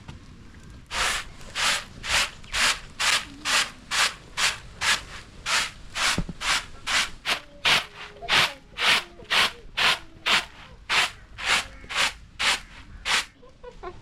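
Maize being ground by hand on a grinding stone: steady rasping strokes, about two a second, starting about a second in and stopping shortly before the end.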